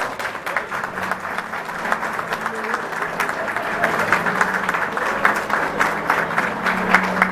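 Crowd of guests applauding, many hands clapping steadily.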